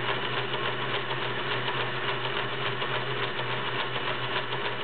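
Kenmore 1730 all-metal sewing machine running steadily, sewing a stretch stitch driven by its metal cam: an even, fast needle clatter over the hum of its motor.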